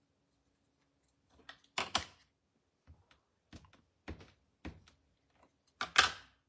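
A clear acrylic stamp being handled and tapped down onto an ink pad: about half a dozen short plastic clacks and taps, the loudest near the end.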